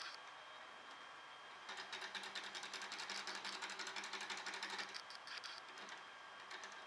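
Small hot-air Stirling engine model with a flywheel and belt-driven LED generator running, its piston and crank clattering rapidly over a low hum. The clatter starts about two seconds in, runs for about three seconds and fades out.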